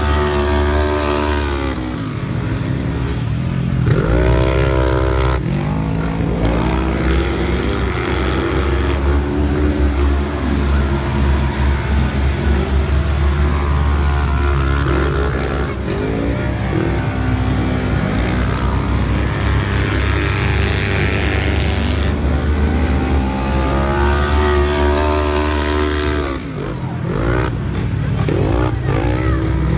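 Several side-by-side UTV race engines revving on a dirt flat track, their pitch climbing and falling again and again as the machines accelerate down the straights and back off for the turns, over a steady low rumble.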